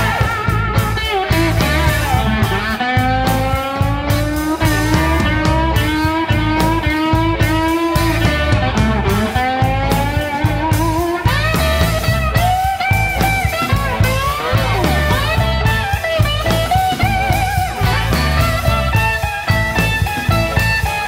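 Electric blues band playing an instrumental break: drums and bass keep a steady groove under a lead line of long, bending notes.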